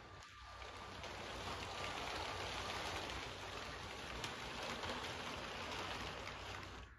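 Lego train running past on plastic Lego track: a steady rolling noise from its motor and wheels, with faint clicks, growing louder as the cars pass close and cutting off abruptly near the end.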